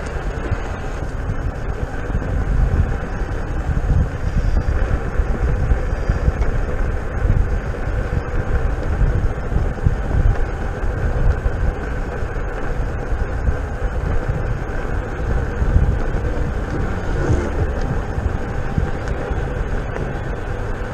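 Wind buffeting the microphone, with tyre rumble from a King Song S18 electric unicycle rolling along an asphalt path at speed; a steady, gusty rush with a heavy low rumble.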